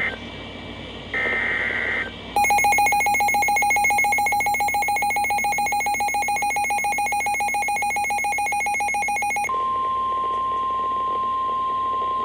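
Emergency Alert System tones for a severe thunderstorm warning. About a second in comes a short shrill data burst from the SAME header. Then a rapidly pulsing, buzzy alert tone sounds for about seven seconds, and after it a steady single-pitched alert tone.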